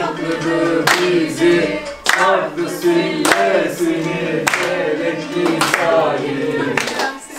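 Several people singing together in unison, with hand claps landing together about once a second on the beat.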